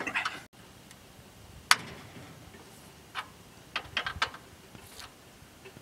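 Sharp metal clicks of a wrench on the oil drain plug of a Briggs & Stratton flathead engine as the plug is worked loose for an oil change. One loud click comes a little under two seconds in, followed by a few fainter, irregular clicks, some close together around four seconds in.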